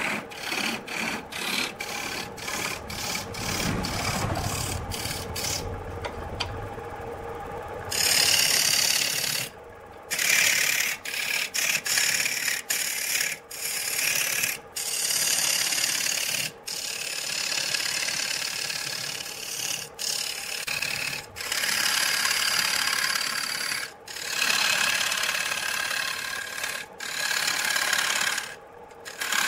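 Turning tool cutting a spinning wood blank on a lathe: a steady, hissing scrape of shavings peeling off the wood, broken again and again by brief breaks.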